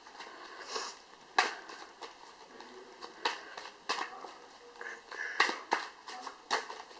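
Tarot cards being shuffled and drawn by hand, giving a run of irregular sharp snaps and taps of card stock.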